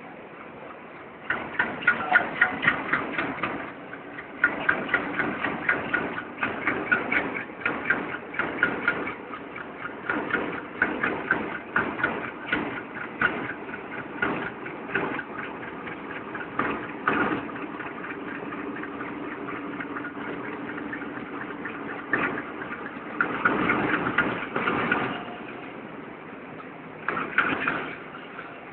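Trains running on parallel tracks: a steady rumble with a rhythmic clatter of wheels over rail joints, which eases to a smoother run for a few seconds past the middle and picks up again after.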